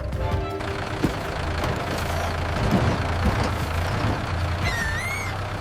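Farm tractor engine running steadily, a low hum under a noisy rumble. A short wavering whistle comes near the end.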